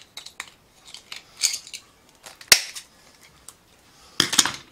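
Shears snipping and bending the thin metal collar (ferrule) off a bundle of brush bristles: a string of sharp clicks and short metallic crunches. The sharpest snap comes about two and a half seconds in, and a longer crunch follows near the end.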